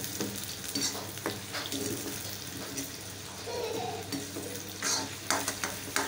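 Sliced onions sizzling in hot mustard oil in a wok, with a metal spatula stirring and scraping against the pan in several strokes, most of them near the start and near the end.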